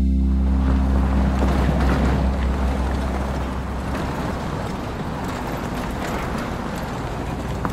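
The song's last low note dies away over the first second or two, leaving a steady, wind-like rushing noise that slowly fades.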